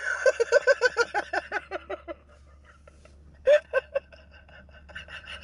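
People laughing: a quick run of 'ha-ha' bursts that fades over about two seconds, then a few more loud laughs about three and a half seconds in.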